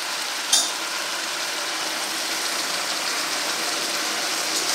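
Chopped onion, brinjal and green chilli frying in oil in a steel kadai with a steady sizzle, as chopped tomatoes are tipped in from a steel plate. A single sharp metal clink, the plate against the pan, about half a second in.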